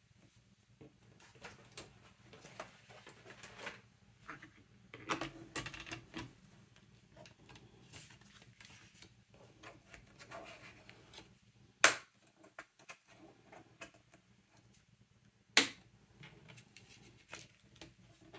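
Light handling sounds of paper crafting on a desk: scattered soft taps, rustles and brief rubbing of card and tools, with two sharp clicks, one about twelve seconds in and another a few seconds later.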